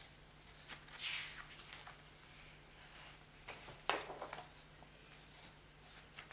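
Glossy pages of a large LP booklet being turned by hand: soft paper swishes about a second in and again just before four seconds, with a light tick as a page comes over.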